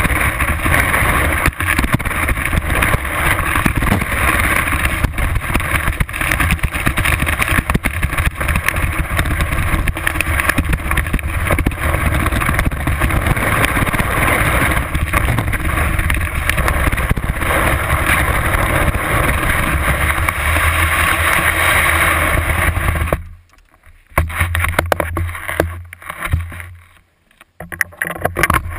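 Rushing wind and the hiss and scrape of skis running through snow, picked up by a GoPro mounted low on the skis. The noise is loud and continuous, then drops off abruptly near the end, leaving quieter, intermittent scraping.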